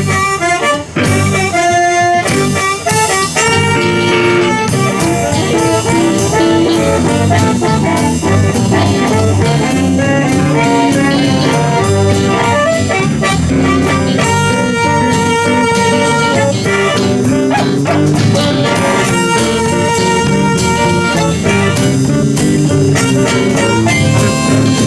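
Live blues band playing an instrumental break: guitars, bass and drums keep a steady groove while a lead line holds long notes over it.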